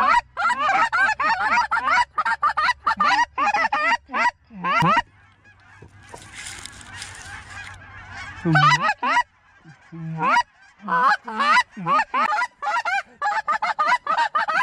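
Rapid, overlapping goose honks and clucks, many calls in quick succession, broken midway by a pause of about three seconds with only a faint hiss.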